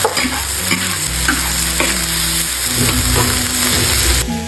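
Stir-frying in a wok: food sizzles in hot oil while a spatula scrapes and knocks against the pan now and then. The sizzle drops away abruptly near the end.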